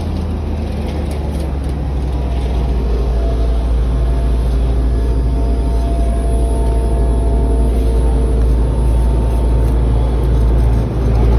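A motor vehicle's engine running steadily nearby with a deep rumble, slowly growing louder.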